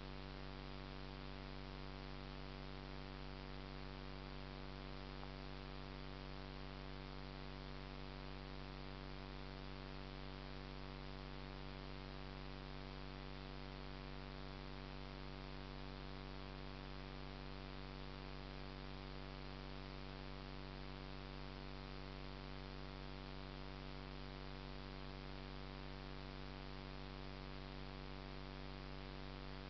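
Steady electrical hum with a layer of hiss, unchanging throughout: the recording device's own electronic noise, with no other sound standing out.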